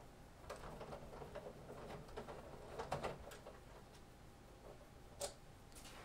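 Screwdriver backing a small screw out of the metal rear panel of a Sky+ HD set-top box: faint, irregular ticks and clicks, with a sharper click about five seconds in.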